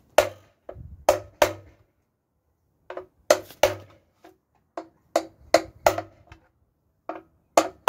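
A series of sharp, irregular knocks and clicks, each with a short ring, from hand and tool work on a removed BMW N47 diesel engine, with short pauses between groups.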